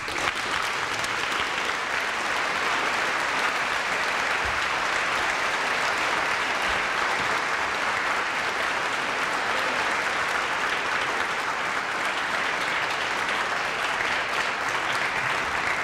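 Large audience applauding, breaking out all at once and keeping up an even, steady clapping.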